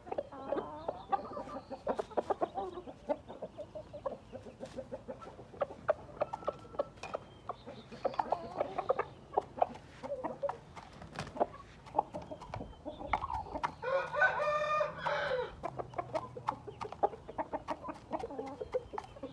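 Gamefowl roosters and hens clucking among many short, sharp ticks, with one rooster crowing for about two seconds past the middle.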